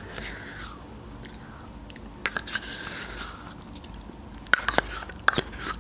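Close-up eating sounds: a metal spoon scraping yogurt from a small plastic cup, then wet mouth sounds of eating it off the spoon, with sharp smacking clicks, the loudest several near the end.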